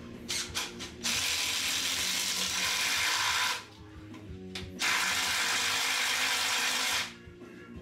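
Hand-held power tool, such as an air ratchet or cordless drill/driver, run on fasteners at the front of the engine: a few short blips, then two long runs of about two seconds each.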